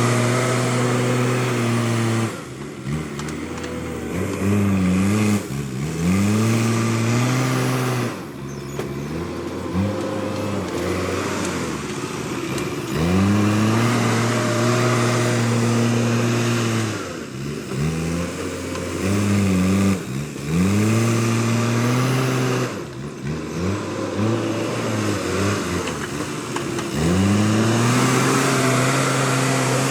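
Backhoe loader's diesel engine working, its revs climbing and dropping back over and over, a cycle every few seconds as the machine takes and releases load.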